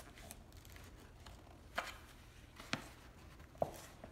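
Sharp knocks and taps of wood: gloved hands working at the lid of a wooden crate to pry it open, a few distinct knocks about a second apart.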